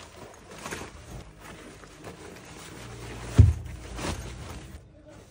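Rustling and handling of a fabric bag as items are packed into it, with a dull thump about three and a half seconds in.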